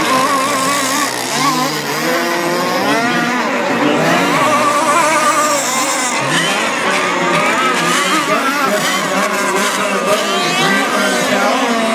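Engines of several radio-controlled sport hydroplane boats racing at high revs together, their pitches wavering up and down as the boats pass and turn.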